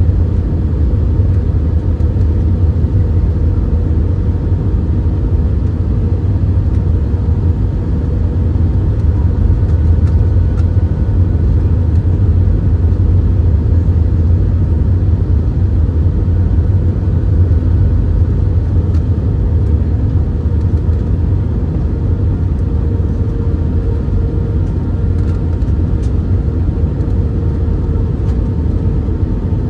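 Cabin noise inside an Airbus A319-132 on approach with the flaps extended: the steady deep rumble of its IAE V2500 engines and the air rushing past. A steady mid-pitched whine rides on top and steps up slightly in pitch about three quarters of the way through.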